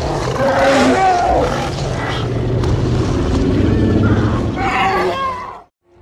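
Baby Zilla monster vocalization sound effect: a long creature call with wavering, gliding high cries over a steady low rumble, and a second higher cry near the end. It cuts off abruptly just before six seconds.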